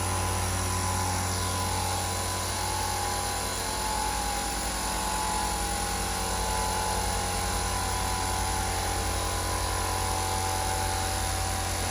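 Stanley 50-litre silent-motor air compressor running steadily: a constant low hum with a steady whine above it, which the owner finds really quiet for a compressor.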